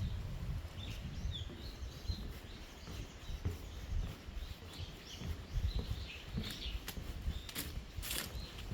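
Small birds chirping and calling in woodland, short scattered chirps throughout, over a low rumbling noise, with a few sharp crackles near the end.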